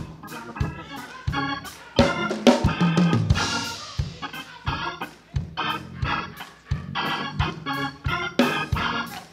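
Church organ playing sustained chords over a steady, quick percussive beat.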